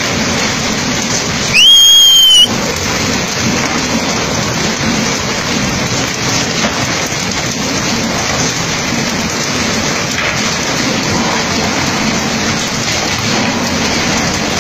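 A loud, high whistle sounds once for about a second, about a second and a half in, rising at the start and then holding steady. Under it runs a steady rushing noise.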